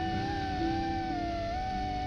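Background music: a smooth, wavering lead line that glides in pitch over steady held notes that step from one to the next.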